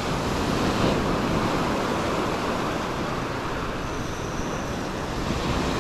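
Surf washing up the sand close by, a steady rushing noise.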